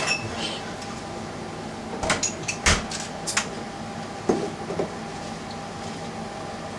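Bar handling sounds: a few sharp knocks and clatters of a door and bottles, bunched from about two to three and a half seconds in, and a softer knock a second later, over a steady hum.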